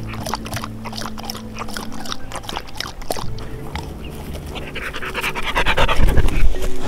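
Border collie lapping water from a cupped hand: a quick run of small wet clicks. About five seconds in comes a louder rush of noise as the dog comes right up close.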